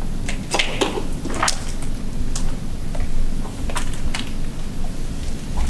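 Handling noise: scattered short clicks and rustles of clothing and gear over a steady low rumble, as a hand holds a meter up to a door.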